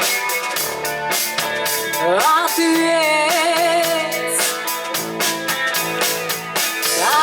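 Live rock band playing: a drum kit keeping a steady beat under bass and guitar, with a singer coming in about two seconds in and holding a long sung line.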